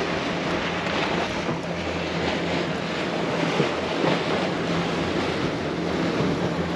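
Wind buffeting the microphone and sea noise aboard a small fishing boat in drizzle, over a low steady engine hum.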